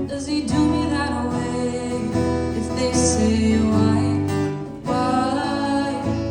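Acoustic guitar strummed, with a female voice singing over it.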